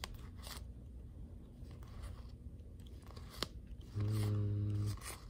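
Trading cards handled and slid one by one off a stack in the hands, with light card-stock scrapes and snaps. A short, steady low hum of a man's voice, an 'mm', comes about four seconds in and is the loudest sound.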